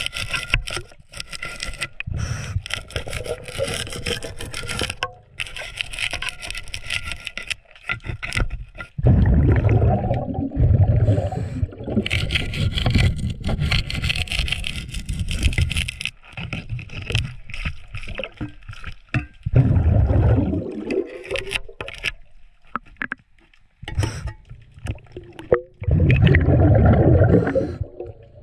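Scuba regulator breathing underwater: long hissing inhalations alternating with three loud, low, bubbling exhalations, with scraping and clicking of a wrench on the sterndrive's fittings.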